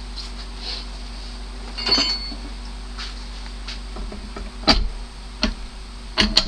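Steel pipe fittings of a homemade propane forge burner (pipe nipple and reducing couplers) handled at a bench vise: a few sharp metal knocks and clicks, one clink about two seconds in that rings briefly, and a quick cluster of clicks near the end.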